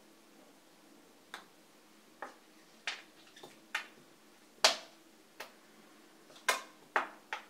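A hair-dye applicator stirring a thick pigmenting mask in a plastic bowl, tapping against the bowl in about ten sharp, irregular clicks. The loudest click comes a little before five seconds in.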